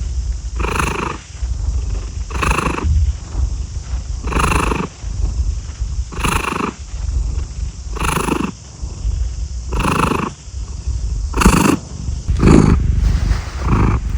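Cat purring: a steady low rumble with a louder rasping swell on each breath about every two seconds, the breaths quickening near the end.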